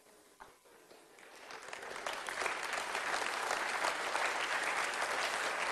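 Audience clapping, starting faintly and swelling within about two seconds into steady applause.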